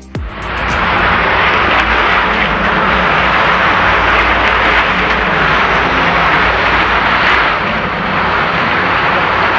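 Cement mixer running steadily with its drum turning, mixing concrete for the footings.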